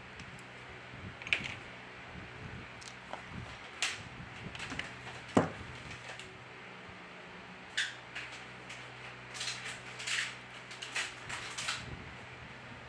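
Scattered light clicks and taps of plastic phone parts being handled, with a denser run of clicks late on, over a faint steady hum. The parts are a Samsung Galaxy M31's back cover and plastic mid-frame.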